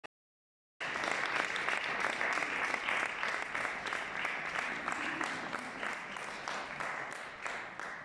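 Audience applauding. The clapping starts abruptly about a second in and gradually fades toward the end.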